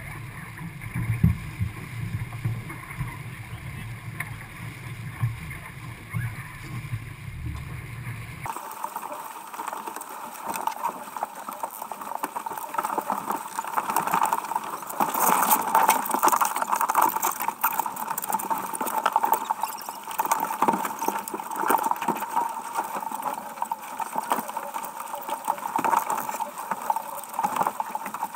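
Water rushing and splashing along the hull of a heeled sailboat under way, with wind on the microphone. A low rumble drops out abruptly about eight seconds in, leaving the splashing rush of water.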